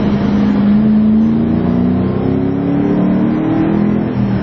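2008 Ford Mustang engine accelerating, heard from inside the cabin: its pitch climbs steadily, then drops back near the end.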